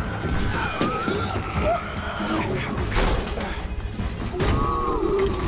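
Film soundtrack: dramatic score with sharp impact hits, about one second, three seconds and four and a half seconds in.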